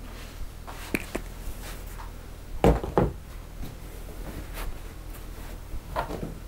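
Scattered knocks and clicks of a barber's tools being picked up and set down on a wooden counter. The loudest are two knocks close together about two and a half seconds in, with another near the end.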